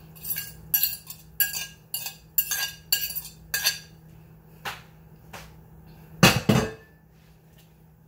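A spoon scraping and clinking against a plate as chicken pieces are pushed off it into a soup pot, about two strokes a second for the first few seconds. Then a few single clinks, and a louder clatter about six seconds in.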